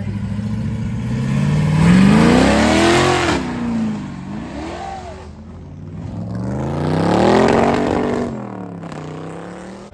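Square-body pickup truck's engine accelerating hard away. It revs up for a couple of seconds, drops back with a short blip, then revs up again before settling lower.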